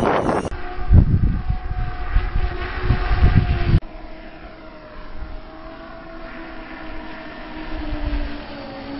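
FPV racing quadcopter's motors and propellers buzzing in flight, a steady whine of several tones that wavers in pitch. Wind rumbles on the microphone over the first few seconds and stops abruptly about four seconds in.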